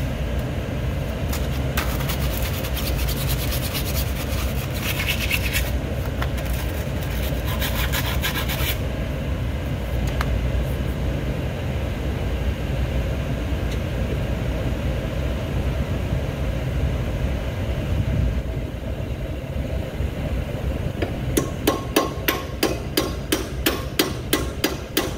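Scraping and rubbing of metal parts on the Zamboni blade-wheel shaft for several seconds. Near the end come about a dozen quick, even taps of a metal hammer on the shaft's bearing assembly, about three a second.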